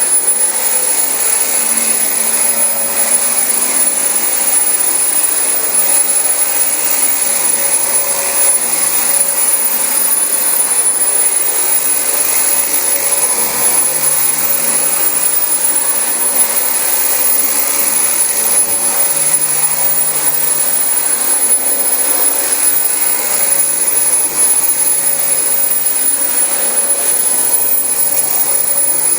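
Dyson DC25 bagless upright vacuum cleaner running steadily over carpet, a loud motor rush with a thin high whine on top.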